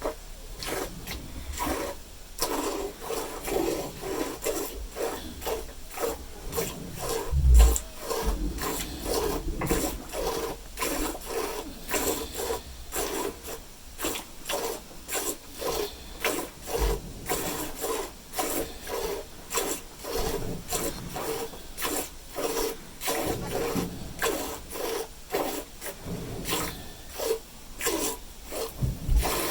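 Hand milking of a cow: milk jets squirting into a pail in a steady rhythm of about two strokes a second, with a dull thump about seven seconds in.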